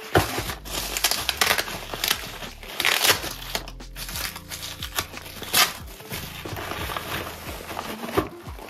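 Plastic packaging and bubble wrap crinkling and rustling in irregular bursts as it is unwrapped by hand, over soft background music.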